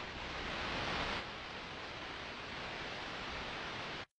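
Steady background hiss of the recording with no speech. It cuts off suddenly near the end into dead silence as the recording stops.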